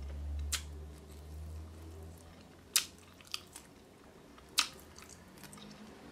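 A person chewing a mouthful of a Beyond Burger plant-based patty on a bun, with a few sharp clicks of the mouth. The two loudest clicks come about three seconds and four and a half seconds in.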